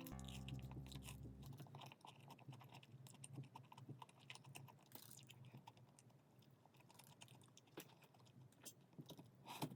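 A person chewing food, faint, with many small wet clicks and occasional crunches.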